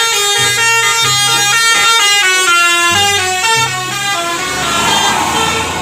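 Indonesian "telolet" bus horn playing a tune: a run of stepped, multi-tone horn notes that give way to a hiss near the end.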